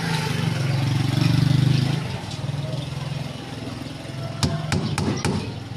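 A steady low motor hum, loudest for the first two seconds and then quieter, with a few sharp clicks or knocks coming about four and a half to five and a half seconds in.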